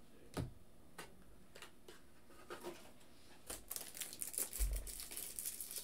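Trading cards being handled on a desk: a few light separate clicks and taps, then steady crinkling and rustling from about three and a half seconds in, with one low thump near the end.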